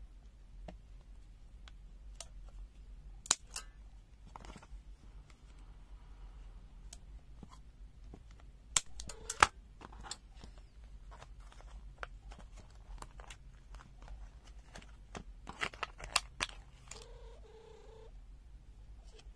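Unpacking pliers from their cardboard backing card: small spring-loaded snips cutting the card, with card and plastic rustling and tearing. A handful of sharp snips and snaps stand out, loudest about nine seconds in and again around sixteen seconds in.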